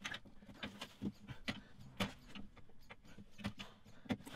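Irregular light clicks and knocks of hand work under the bonnet, a few a second: tools and fingers handling the metal radiator support bracket and its plastic wiring-loom clips as the bracket is worked free.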